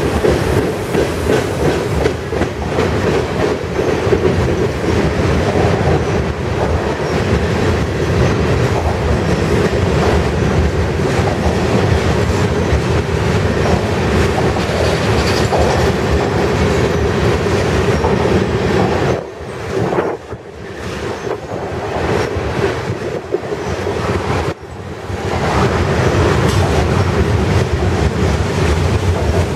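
Freight train of tank cars rolling past close by: a loud, steady rumble of steel wheels on rail with clattering over the rail joints. The noise drops briefly twice, about two-thirds of the way through.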